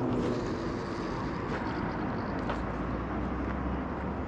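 Steady low rumble of distant urban traffic.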